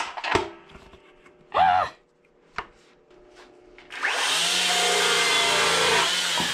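Electric chainsaw cutting through a branch, coming in at full speed about four seconds in with no idle before it and running steadily for about two and a half seconds. Before it come a few knocks from handling wood.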